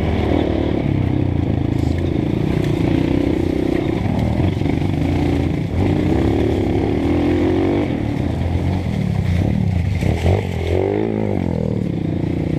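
Honda CRF230F trail bike's single-cylinder four-stroke engine running under throttle on a dirt trail, the revs rising and falling as the rider works the throttle. About ten seconds in, the revs swing quickly down and back up.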